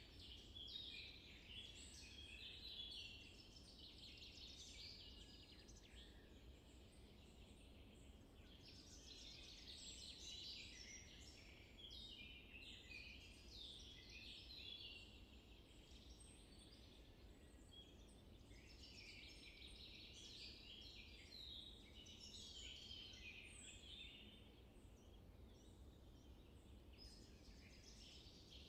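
Faint birdsong, several small birds chirping in a scattered chorus with brief lulls, over a low steady background rumble.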